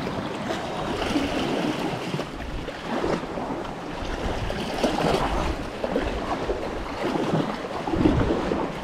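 Sea water sloshing and splashing around a sea kayak as it is paddled along a rock face, with irregular paddle-stroke splashes. Wind buffets the microphone.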